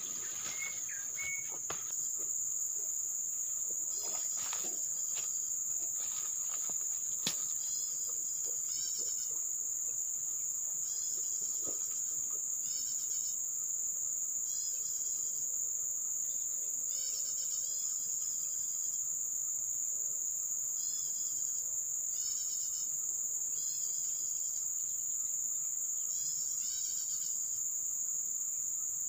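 Steady high-pitched drone of insects, with repeated short runs of rapid chirps every second or two. A few rustles and sharp clicks in the first several seconds.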